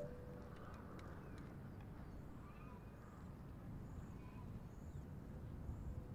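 Quiet outdoor ambience: a steady low rumble of wind with faint, scattered bird chirps.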